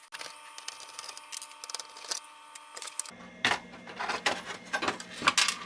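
Screwdriver and hands clicking and scraping against a Commodore 64's metal heat shield and circuit board as the shield is worked loose. Scattered small clicks and knocks, louder and more frequent after about three seconds.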